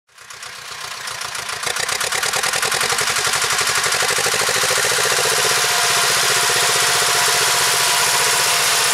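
Vladimirets T-25 tractor's two-cylinder air-cooled diesel running steadily with a fast, even pulse while pulling a seed drill across a field. The sound fades in over the first two seconds.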